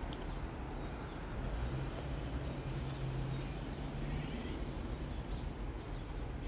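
Small birds chirping faintly, short high notes repeating about once a second, over a steady low rumble; a low hum comes in for a couple of seconds in the middle.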